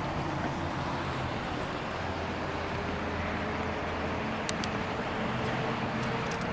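Steady traffic noise: a low vehicle engine hum over a constant road rumble.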